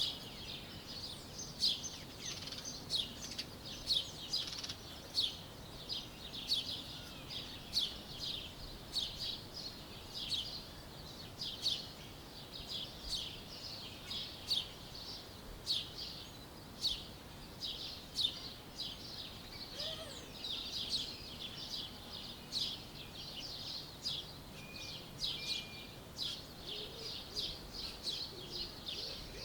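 A chorus of small songbirds chirping: many short, high chirps overlapping, several a second, without a break, over a faint background hiss.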